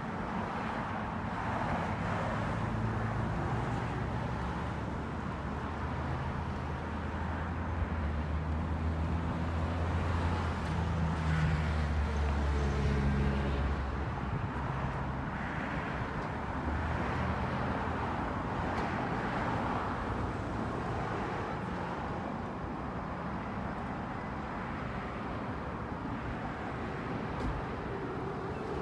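Steady low hum of a motor vehicle's engine running, louder in the first half and fading after about fourteen seconds, over a light even outdoor wash of traffic noise.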